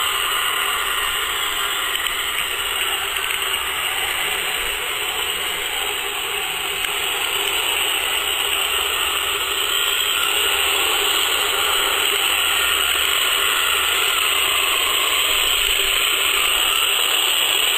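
Bandai 1/15 radio-controlled Hummel model tank's electric drive motors and gearboxes running as it drives on its tracks, a steady mechanical hiss with no breaks.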